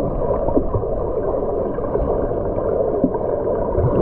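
Muffled underwater sound from a camera held under the surface of a swimming pool: a dull, steady rush with bubbling and gurgling as a child swims past, kicking.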